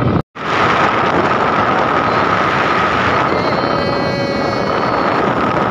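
Auto-rickshaw running along the road, heard from inside the cab: steady engine drone and wind rush on the microphone. A high pitched tone with overtones rides over it for about two seconds past the middle.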